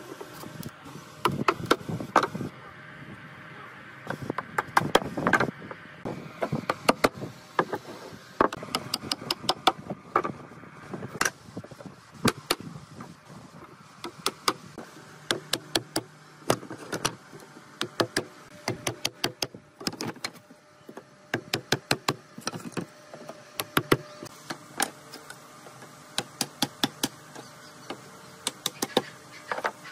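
Wooden slats being pushed into mortises in a wooden rail and knocked home: many sharp wood-on-wood knocks in irregular runs, with rubbing of wood on wood between them.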